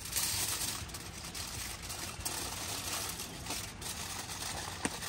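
Aluminium foil crinkling and rustling as it is folded and wrapped around a whole trout, with a steady low hum underneath.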